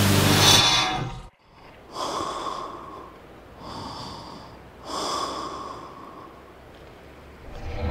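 Three heavy breaths drawn through a gas mask respirator, each about a second long, after music cuts off about a second in.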